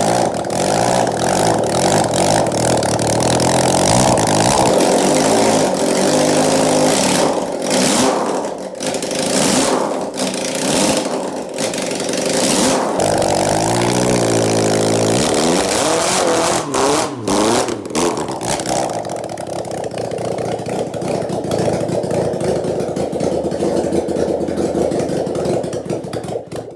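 Freshly installed four-cylinder crosskart engine running on the bench. Its revs rise and fall a few times about halfway through, then it settles back to a steady run.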